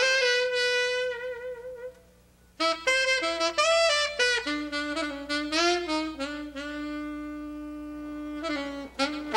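Solo saxophone playing: a long held note with vibrato, a brief pause about two seconds in, then a quick run of notes settling into a long lower note, with a few more notes near the end.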